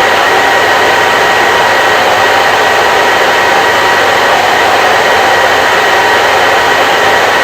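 Hair dryer running steadily: a continuous loud rush of blown air with a steady high motor whine in it.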